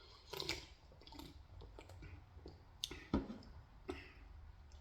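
Quiet close-up eating sounds from a mouthful of pizza: soft wet mouth clicks and squishes, with a few sharper clicks about three seconds in.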